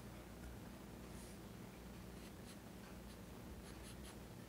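Pencil scratching on paper in short, faint, scattered strokes while drawing, over a low steady hum.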